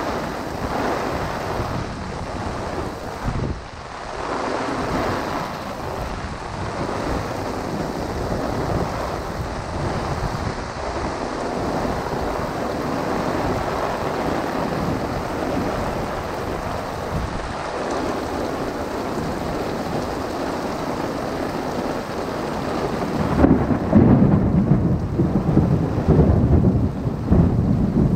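Heavy rain falling steadily on a golf umbrella and the street. A strong rumble of thunder builds about three quarters of the way through and goes on, deep and loud.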